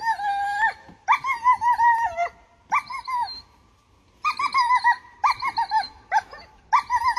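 A dog whining in a string of high, wavering cries, about six short bursts with brief breaks between them.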